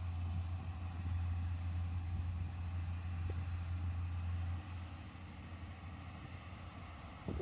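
Yanmar YH470 combine harvester's engine running with a steady low drone that drops off about four and a half seconds in.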